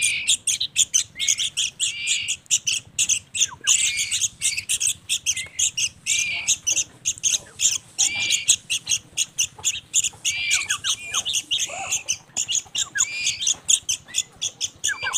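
Hand-reared fledgling songbirds begging for food while being fed mealworms with tweezers: a dense, unbroken run of rapid, high chirps and squawks, several each second.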